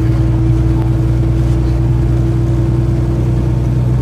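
A truck's engine and tyres droning steadily inside the cab while cruising on the highway, a constant hum that holds one pitch.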